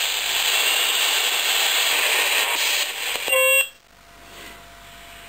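Yaesu FT-817 receiver's speaker hissing loudly in AM mode while being tuned. About three and a half seconds in there is a brief squeal. The hiss then drops to a quiet background with a faint steady tone: the receiver has settled on the toy walkie-talkie's drifting AM carrier, whose signal quiets the noise.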